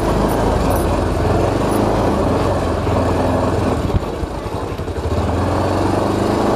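Motorcycle engine running at low speed over a rough, muddy dirt road. About four seconds in there is a knock, and the engine eases off briefly before settling back to its steady note.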